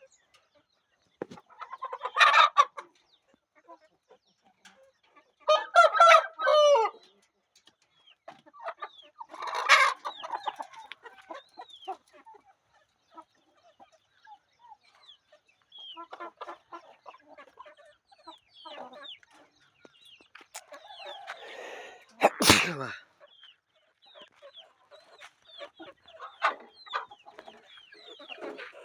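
Rooster crowing a few times, loudest about five to seven seconds in, with chickens clucking and many short calls in between. One sharp, loud sound comes about two-thirds of the way through.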